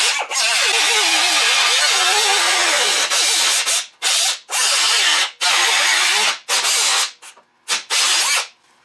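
Pneumatic cutoff wheel cutting through the steel quarter panel of a 1965 Pontiac GTO: a loud hiss with a whine whose pitch wavers under load. From about three seconds in it cuts in short bursts with brief stops, and it stops just before the end.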